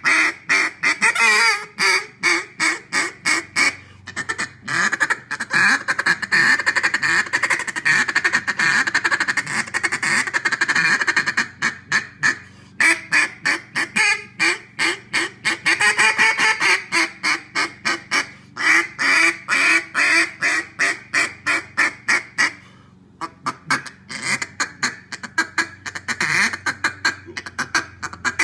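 Fat Lady Game Calls D2D mallard duck call blown in its low end: long runs of raspy hen quacks, some spaced and some fast, broken by a few short pauses.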